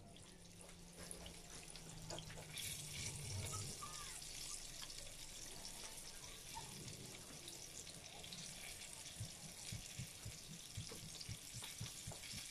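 Faint kitchen handling sounds as raw meatballs are rolled in flour by hand and set down, with soft scattered taps that come more often near the end.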